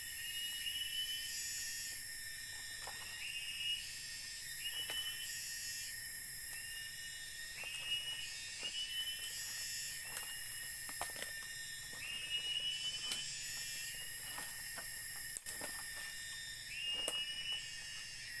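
Forest insect chorus: a steady high drone with very high trilling that switches on and off every second or two, and a short call, rising then holding, repeated many times. Small scattered clicks and snaps come from the twig fire being lit and tended.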